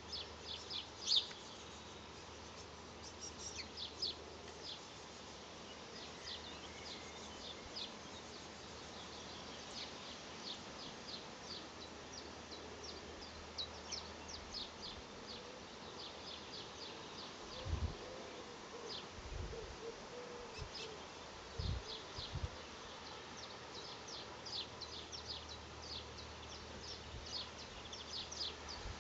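Small songbirds at garden feeders giving scattered short, high-pitched chirps in quick little clusters, the loudest about a second in. A few low thumps come in the middle.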